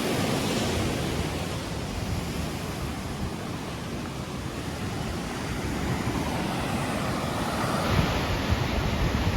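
Ocean surf washing onto a sand beach, a steady rush that swells near the start and again near the end.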